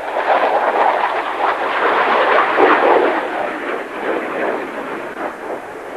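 Jet noise from a Grumman F-14 Tomcat's twin engines in flight, a loud rushing noise that fades gradually over the last few seconds as the jet flies away.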